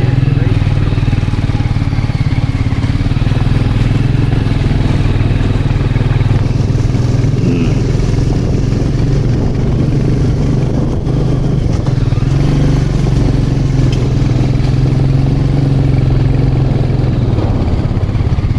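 Single-cylinder motorcycle engine running steadily at low, even revs as the bike is ridden, with a slight dip about eleven seconds in.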